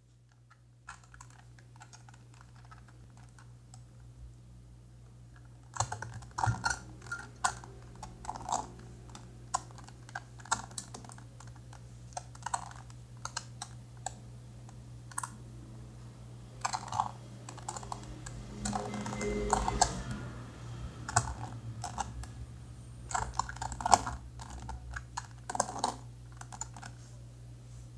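Helicopter Cube puzzle being turned by hand: irregular flurries of plastic clicks and clacks as its pieces turn and snap into place, starting about six seconds in, with a rattling stretch of quick turns a little past the middle. A steady low hum lies under it throughout.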